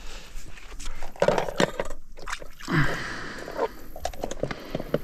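Water splashing and sloshing as a small northern pike is scooped into a landing net and thrashes in it, with irregular splashes and knocks.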